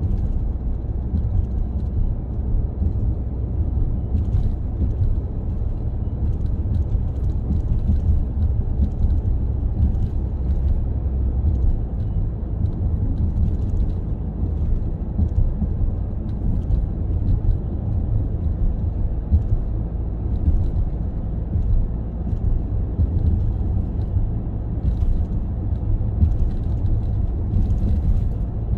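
Car driving on a highway: a steady low rumble of tyres and engine, with faint ticks now and then.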